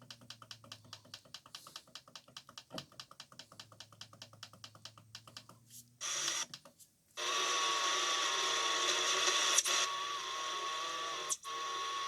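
Shortwave radio receiver output: rapid even ticking, about seven ticks a second over a low hum, which stops about six seconds in. After a short burst and a moment of silence comes a steady loud hiss of shortwave static with a thin steady whistle tone through it.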